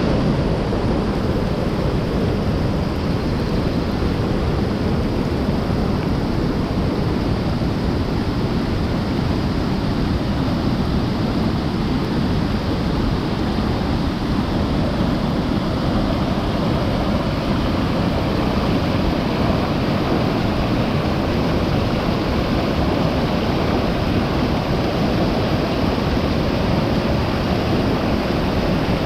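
Rain-swollen mountain stream rushing in flood after heavy rain: a loud, steady noise of fast-running water.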